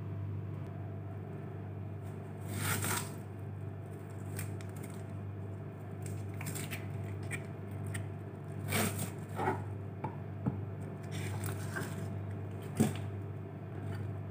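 Kitchen knife slicing an onion on a cutting board: scattered knocks and scrapes of the blade, one a few seconds in and more through the second half, over a steady low hum.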